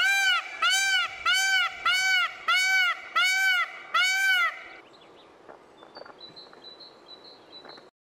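Indian peafowl calling: a run of about seven loud honks, roughly two a second, each rising and falling in pitch. After about five seconds only faint high chirps remain.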